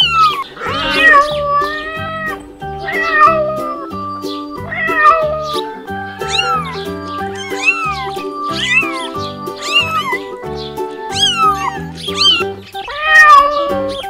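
Domestic cats meowing over and over, about one meow a second, over background music.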